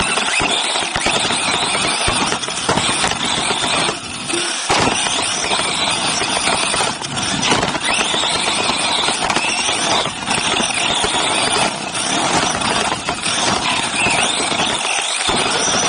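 Onboard sound of a Team Associated RC8B3.1 electric 1/8-scale off-road buggy racing: motor and drivetrain whine mixed with a rough rush of tyres on dirt and wind on the body. The low end drops out briefly about four seconds in and again near the end.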